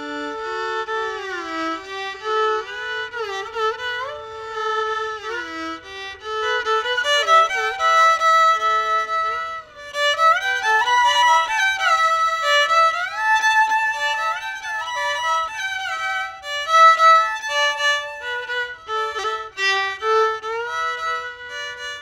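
Solo violin playing a slow, flowing melody, with many notes sliding up and down into one another.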